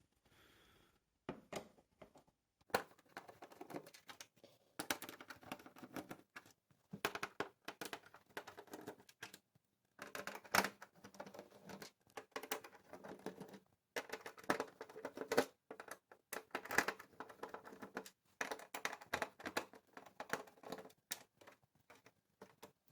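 Screwdriver turning screws out of a TV's plastic back cover: irregular clicking and scraping in runs of a few seconds, with short pauses between.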